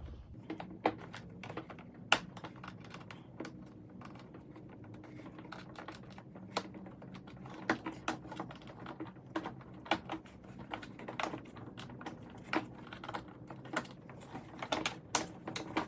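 Irregular light clicks and taps of a small screwdriver against plastic as the tabs holding the cable to the inside door handle are worked loose, with one louder click about two seconds in, over a faint steady low hum.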